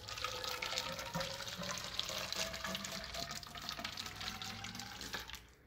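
Water poured from a plastic cup through a funnel into a narrow plastic rain gauge tube, a steady splashing fill that stops near the end.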